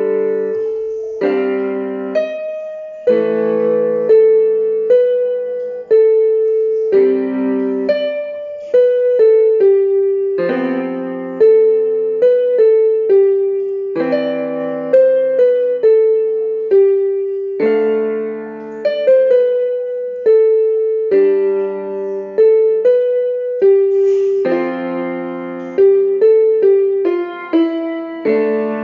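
Solo piano music: a slow melody of struck notes over chords, each note fading after it is played.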